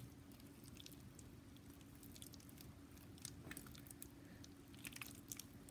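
Faint sticky clicks and squishes of overactivated slime being stretched and kneaded by hand as lemon juice is worked into it, over a faint steady hum.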